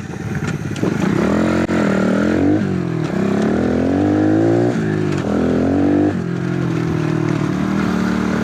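110cc single-cylinder four-stroke pit bike engine revving up and easing off three times, then running at a steady speed for the last couple of seconds.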